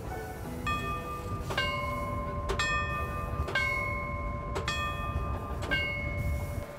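Bell of an old railway signal-bell apparatus struck about once a second, each stroke ringing on, over a low rumble.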